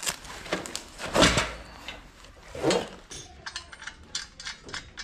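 Metal wall brackets for an AC outdoor unit being handled and fitted: two louder scraping knocks, then a run of quick sharp clicks and taps from metal parts and tools.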